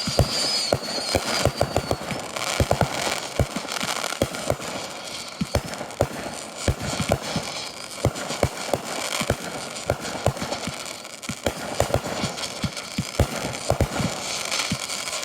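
Consumer fireworks going off in quick succession: a dense, irregular run of bangs and crackles, with a high wavering whistle in the first couple of seconds.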